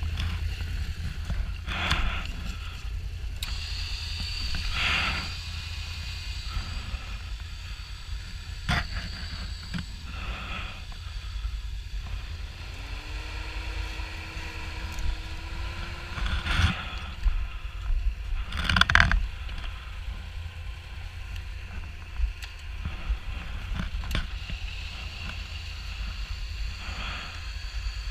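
Can-Am Renegade XMR 1000 ATV running low in the background while its winch cable and hook are pulled out and handled, with several sharp metallic clanks and clinks. A steady whine comes in for about four seconds near the middle.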